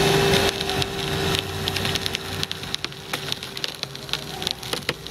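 A car's shattered laminated windshield crackling in many irregular sharp clicks as it is worked by hand, over a steady hum.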